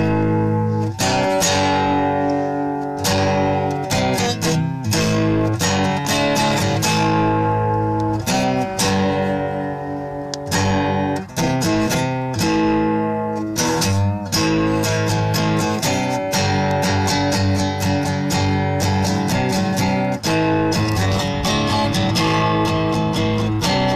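Acoustic guitar strummed in chords, the strokes coming quicker and busier in the second half.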